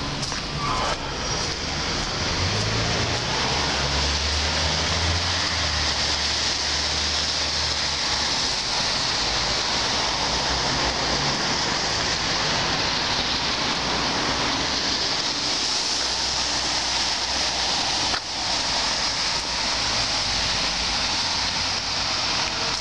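Steady street noise of traffic on a wet road: an even hiss, with a low rumble from about 2 to 8 seconds in and a brief drop near the end.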